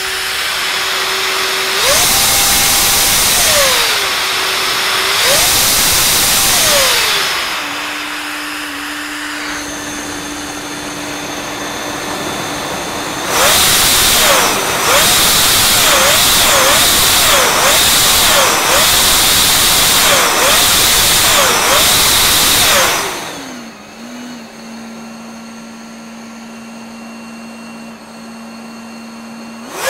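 Electric supercharger, a compressor spun by an LMT 3080 electric motor on an MGM 30 kW controller, being revved: its whine climbs and falls twice with a loud rush of air. Then comes a quick run of short revs lasting about ten seconds. Near the end it drops to a lower, quieter steady whine.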